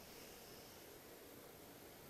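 Near silence: steady low hiss of room tone.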